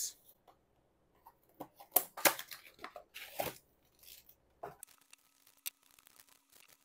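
A trading-card booster box being torn open by hand: a few sharp rips and rustles, the loudest about two seconds in and a longer rip a second later. After that come faint crinkles and clicks as the foil booster packs are handled.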